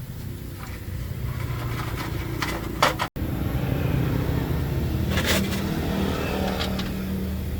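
An engine running steadily with a low hum, with a few sharp metal clanks, and a brief cut in the sound about three seconds in.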